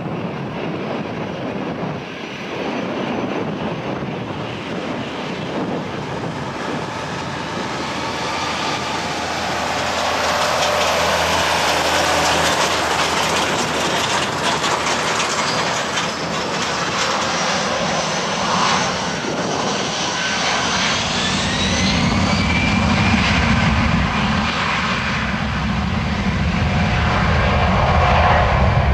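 Twin CFM56-5B jet engines of an Airbus A320-214 running at taxi power, then spooling up for the takeoff roll: a rising whine from about two-thirds of the way in, then a deep rumble that grows louder toward the end.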